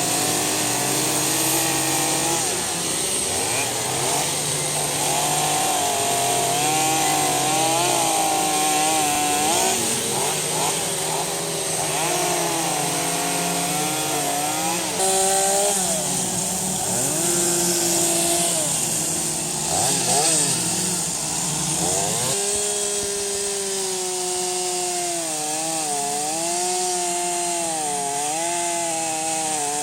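Chainsaw cutting into redwood, its motor pitch wavering up and down as it works the wood. About two-thirds of the way through the sound changes, its lowest part dropping away.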